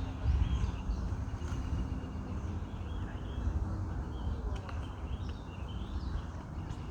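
Wind rumbling on the microphone, with faint bird chirps scattered over it.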